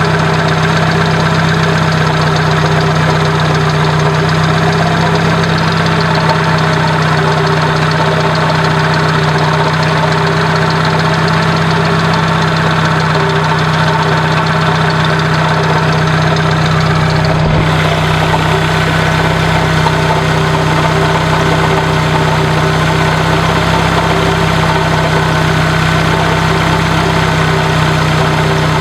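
1996 Dodge Neon's SOHC four-cylinder engine idling steadily, with a grinding, scraping noise from the alternator running over the normal engine sound: the alternator's bearings have failed.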